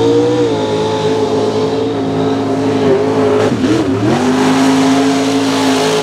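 Mud racing truck's engine at wide open throttle, held high and steady, briefly dipping and climbing back about three and a half seconds in.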